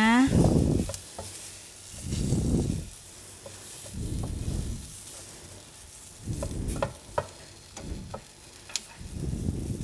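Silicone spatula stirring and tossing prawns through toasted oatmeal in a frying pan, the food frying. There is a swishing scrape about every two seconds, with a few light clicks of the spatula on the pan.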